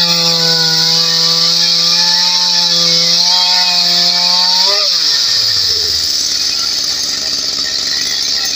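Ryobi chainsaw with a 16-inch bar cutting through a log at a steady high speed. About five seconds in it revs up briefly as it breaks through, then winds down.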